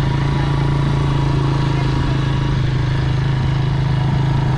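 Motor vehicle engine running steadily at one even pitch, a loud low hum that holds constant throughout.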